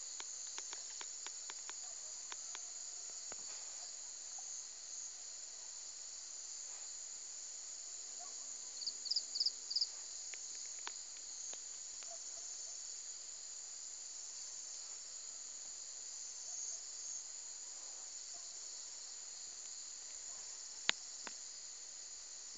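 Steady high-pitched buzz of insects, with a run of four or five loud, quick chirps about nine seconds in and a single sharp click near the end.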